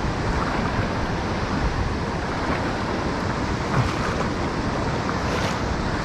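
River current rushing steadily over rocks, a constant even hiss.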